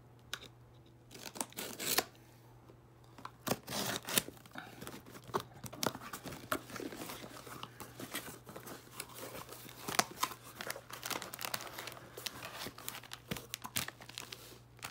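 Cardboard shipping box being opened with a utility knife: the blade scraping and slicing through packing tape, tape tearing and cardboard flaps rustling, in a string of short, sharp bursts. Near the end, a foil pouch crinkles as it is handled.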